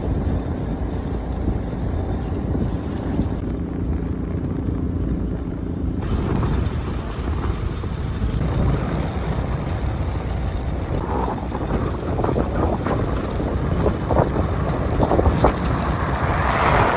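A small motor vehicle under way: steady engine and road rumble with wind rushing over the microphone. Scattered rattles and knocks come in more often during the second half.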